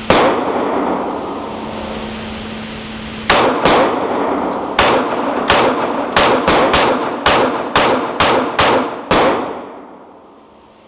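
Gunshots: a single shot, then after about three seconds a string of about fifteen shots that speeds up to three or four a second. Each shot rings out with a long echo.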